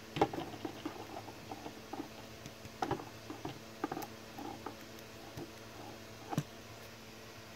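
Hands posing a plastic Transformers Studio Series Bonecrusher action figure: irregular clicks and light taps from its jointed limbs and claw arm being moved, the sharpest about a quarter second in, about three seconds in and a little after six seconds.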